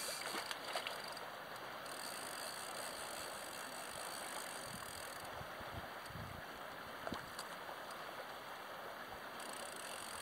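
Steady rush of river water, with a few low wind bumps on the microphone around the middle and a few light clicks near the start.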